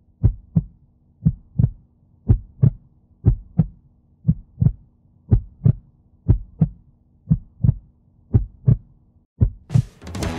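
Heartbeat sound effect: a steady lub-dub of paired low thumps, about one pair a second, over a faint steady hum.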